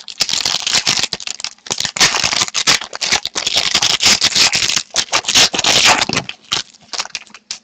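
Plastic wrapper of a trading-card pack crinkling as the pack is opened by hand: dense crackling that thins to scattered clicks about six seconds in.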